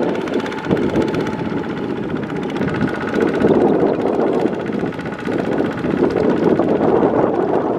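Single-cylinder diesel engine of a two-wheel walking tractor running steadily under load as its cage wheels churn through a flooded paddy field, with wet mud and water splashing.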